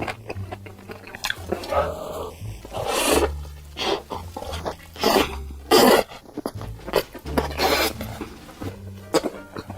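Close-miked eating sounds: a person biting and chewing pizza and burger with wet mouth noises, in uneven bursts, the loudest a little before six seconds in.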